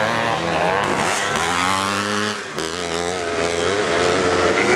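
Several motocross motorcycle engines revving up and down as the bikes ride past on the dirt track, their pitches rising and falling and overlapping.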